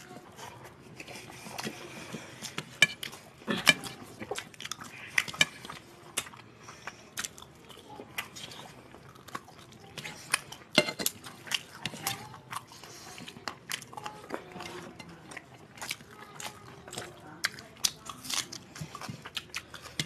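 Close-up eating sounds of two people eating rice and chicken curry by hand: chewing, with many short sharp clicks scattered throughout.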